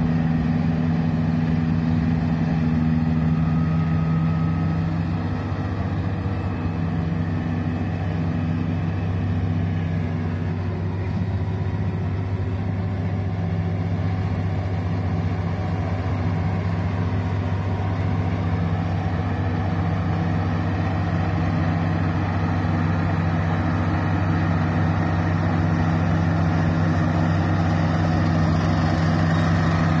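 Small crawler rice combine harvester running as it cuts standing paddy: a steady, continuous engine drone with a strong low hum.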